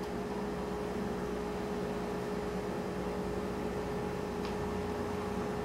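Steady background hum and hiss with one constant mid-pitched tone, like a running appliance or fan, and a faint tick about four and a half seconds in.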